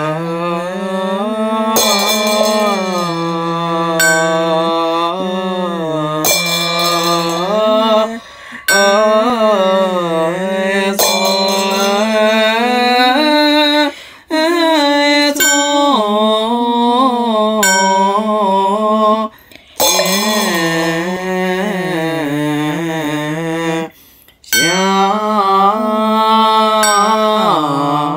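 A single voice chanting Chinese Buddhist liturgy in long, drawn-out melodic phrases, with short breaks between phrases. A light struck beat sounds about every two seconds.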